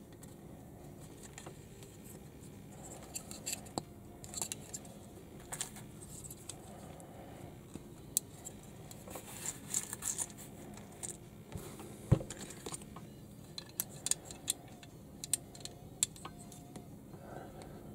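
Small plastic building bricks clicking and scraping as they are pressed together by hand, in irregular sharp clicks, with one louder knock about twelve seconds in. A faint steady low hum runs underneath.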